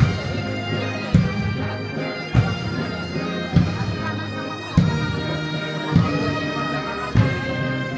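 A pipe band playing: bagpipes sounding steady drones under the melody, with a bass drum striking about every second and a quarter, seven beats in all.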